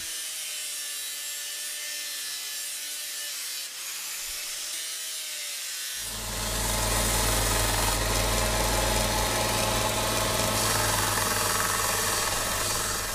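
Angle grinder with a sanding disc working a knife's oak handle, a steady high whine with a grinding hiss. About six seconds in it gives way to a louder bench-mounted sanding drum shaping the handle, its electric motor humming low under the rasp of wood on abrasive.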